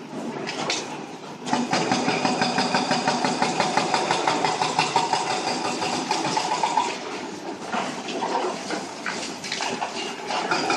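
Diesel engine of heavy demolition machinery running, with a fast, even rattle from about a second and a half in until about seven seconds. After that it drops lower and goes uneven, with scattered knocks.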